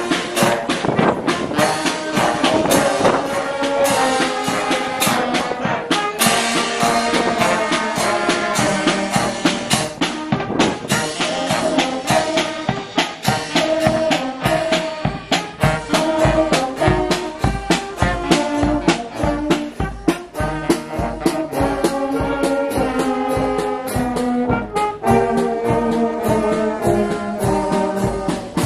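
Marching brass band playing a march: trumpets, trombones and saxophones carry the tune over a steady bass drum and snare drum beat.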